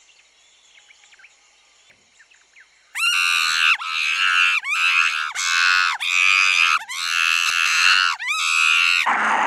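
A cartoon monkey screaming: a string of about eight high-pitched shrieks in quick succession, each starting with a rising swoop, beginning about three seconds in after a near-quiet start.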